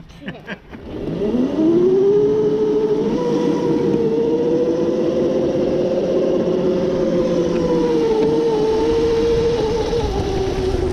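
Electric motor of a small battery-powered ride-on whining, rising in pitch as it speeds up about a second in, then holding a steady pitch at speed, over tyre and wind noise on asphalt.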